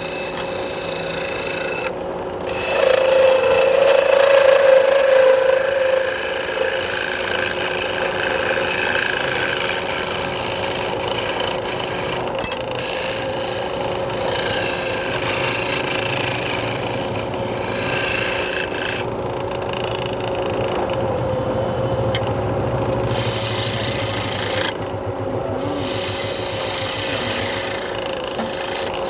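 Wood lathe running with a steady motor hum while a turning tool cuts the spinning wood, giving a continuous rasping scrape that briefly drops out a few times.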